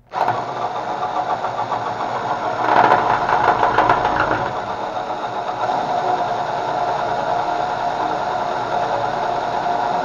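Power drill running steadily with its twist bit boring into a rusted steel screw head, to make a pilot hole for a spiral screw extractor. The drill starts suddenly and grows louder for a couple of seconds about three seconds in, then settles back to a steady run.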